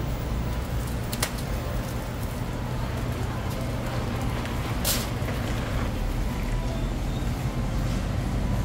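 Supermarket background noise: a steady low hum with a faint steady tone above it. Two short sharp clicks come through, about a second in and about five seconds in.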